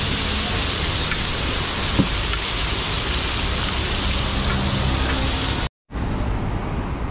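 Chickpea curry sizzling on a hot flat griddle (tawa), a steady hiss. Near the end it breaks off and gives way to duller street traffic noise.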